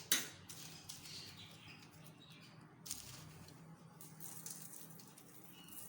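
Cinnamon sugar being sprinkled over homemade ginger-lemon hard candies: faint light pattering and scratching, with a sharp click just at the start and a softer knock about three seconds in.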